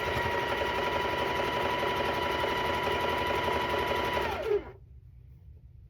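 Sewing machine stitching at a steady speed with a constant whine, then slowing and stopping about four and a half seconds in, as the sewer pauses to adjust the fabric.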